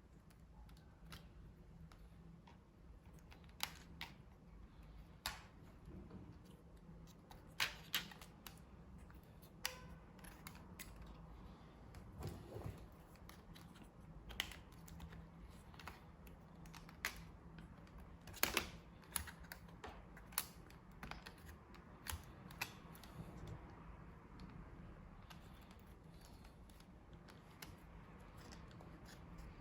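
Irregular sharp clicks and taps a few seconds apart, over a faint low hum: small tools and small plastic and metal parts being handled during laptop disassembly.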